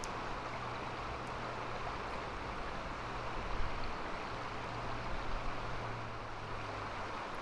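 Steady rush of a shallow river running over stones, with a low steady hum underneath.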